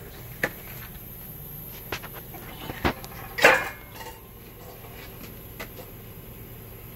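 Molten aluminum being poured from a crucible onto EPS foam buried in sand. There are a few sharp knocks and clanks of metal handling gear, and the loudest is a short, noisy burst about three and a half seconds in, over a steady low hum.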